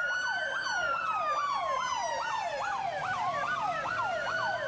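Emergency vehicle sirens sounding together: one slow wail that falls gradually and rises again about three seconds in, overlaid by a fast falling sweep repeating about three times a second.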